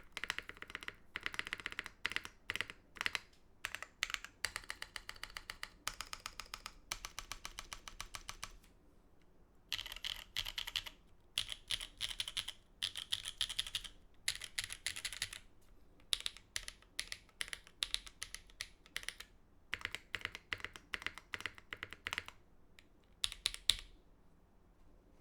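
Typing on a custom top-mount mechanical keyboard with Holy Panda tactile switches, a carbon fiber plate and GMK keycaps: fast runs of keystroke clacks broken by brief pauses, stopping just before the end.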